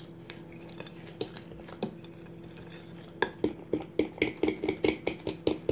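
A utensil stirring thin cake batter in a glass bowl, clinking and scraping against the glass: a few scattered clicks at first, then from about three seconds in a fast, even run of strokes, about four or five a second. A low steady hum runs underneath.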